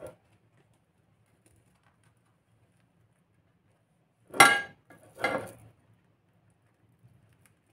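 Metal spoon scraping and clinking against a ceramic bowl while scooping up a soft filling: two short ringing scrapes, about a second apart, a little over four seconds in.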